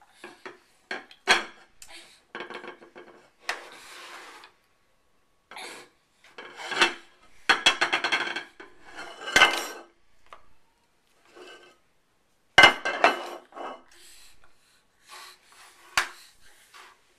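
A baby handling a white lidded plastic pancake dish on a wooden tabletop: irregular clatters and scrapes of plastic, and knocks of hands on the wood. Several sharp clacks come among them, one just before the end as the lid is lifted.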